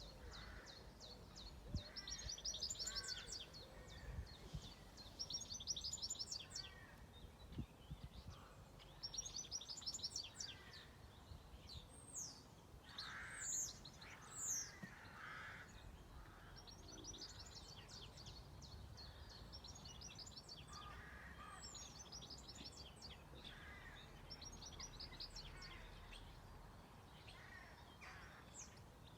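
Songbirds singing: short, rapid trilled phrases repeated every few seconds, with two high, falling whistles about halfway through. A faint low rumble of background noise runs underneath.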